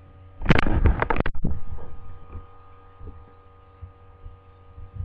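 Handling noise on a webcam microphone: a second-long flurry of rubbing and knocks as the webcam is picked up and moved, starting about half a second in, then a few faint thumps. A steady electrical hum runs underneath.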